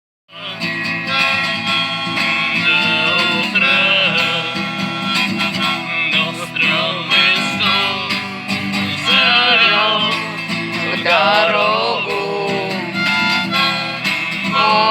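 Acoustic bard-song music: guitar accompaniment with a wavering melody line over it, the instrumental introduction before the singing comes in.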